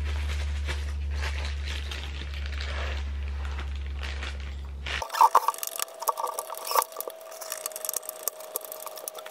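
A steady low hum for about five seconds, then, after a sudden change, small clicks and scrapes of a hand screwdriver driving screws into a metal cabinet hinge.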